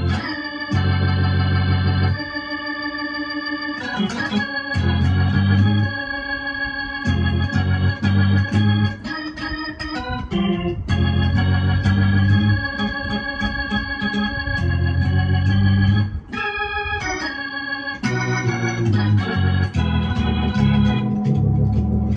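Electronic keyboard played with an organ-like voice: gospel-style chords held steady without fading over low bass notes, changing every second or two, with short breaks between phrases.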